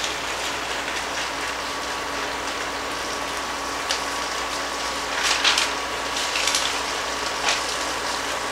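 Sliced beef sizzling steadily as it sears over high heat in an enamelled pot, with a spatula scraping and knocking against the pot a few times, most clearly just past the middle.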